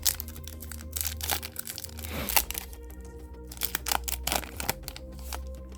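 Foil Yu-Gi-Oh booster pack being torn open and handled, a string of sharp crinkles and crackles, loudest about two seconds in and again around four seconds. Steady background music plays under it.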